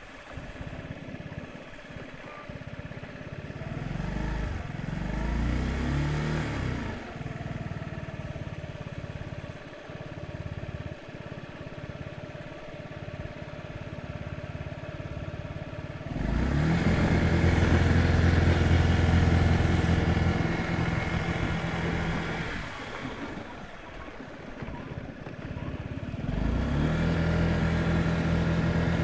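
Honda Giorno AF77's 50cc water-cooled four-stroke single-cylinder scooter engine running at low speed. It revs up a few seconds in, runs louder about halfway through, eases off, then picks up again near the end. The engine has overheated from low coolant and has the check-engine lamp flashing error code 57.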